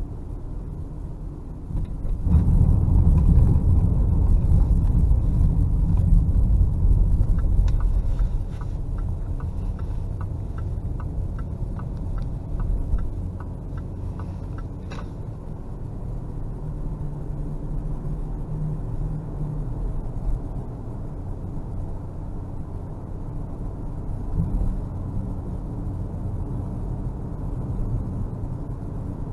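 Low engine and road rumble of a car heard from inside the cabin, swelling about two seconds in and easing off after about eight. Midway, a light ticking runs about twice a second for several seconds.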